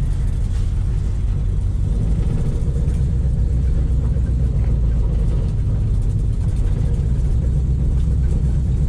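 Old Ford Mustang's engine running with a steady low rumble, heard from inside the cabin, as the car pulls out and drives along the road. The engine is still cold.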